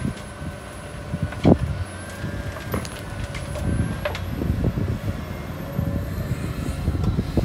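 Caterpillar 323D hydraulic excavator's diesel engine running under load as it dumps a bucket of soil into a dump truck and swings the empty bucket back. A few sharp knocks sound over the rumble, the loudest about a second and a half in, and the engine gets busier from about halfway.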